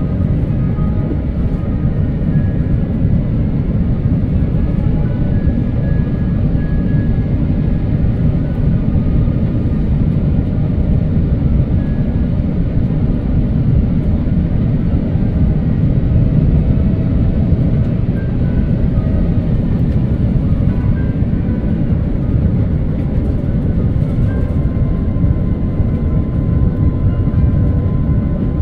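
Airbus A350 airliner in flight, heard from inside the cabin: a steady, loud, low rumble of engine and airflow noise that does not rise or fall.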